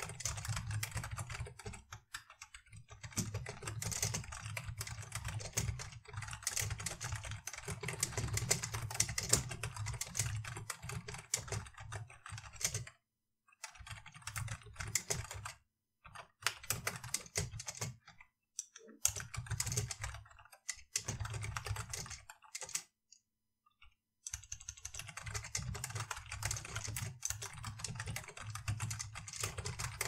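Typing on a computer keyboard: runs of quick key presses broken by several short pauses.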